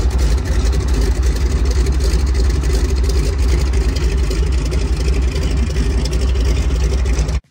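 de Havilland Canada DHC-2 Beaver floatplane's radial engine and propeller running as it taxis on the water: a loud, steady drone that cuts off suddenly near the end.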